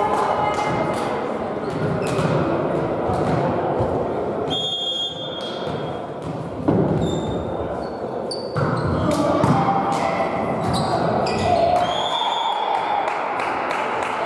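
Volleyball rally in an echoing sports hall: the ball being struck repeatedly, with a sharp hit about seven seconds in and another a couple of seconds later, sneakers squeaking briefly on the court floor, and players' voices calling.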